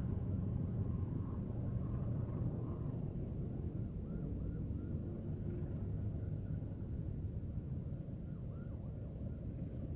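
Passenger train coaches rolling past, a steady low rumble of wheels on rail that slowly fades, with faint short high squeaks from about halfway through.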